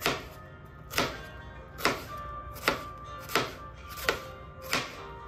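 Chef's knife chopping through a red onion onto a wooden cutting board: seven sharp knocks at a slow, even pace, about one every 0.8 seconds.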